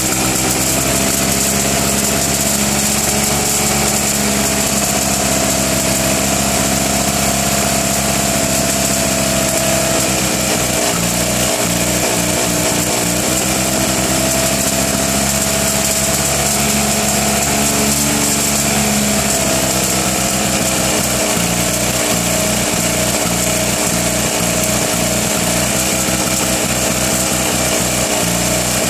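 Fiat 500's 479 cc air-cooled two-cylinder engine running steadily on its first start after a rebuild, pretty rough. Its speed dips and recovers briefly about a third of the way in and again about two-thirds of the way in.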